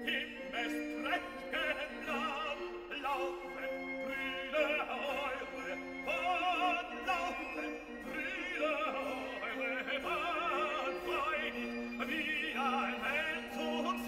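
Background music: operatic singing with a wide vibrato over classical accompaniment.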